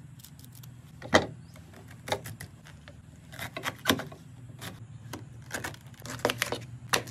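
A knife cutting a fresh pineapple on a plastic plate: a series of short, crisp cuts and knocks of the blade against the plate, the loudest about a second in.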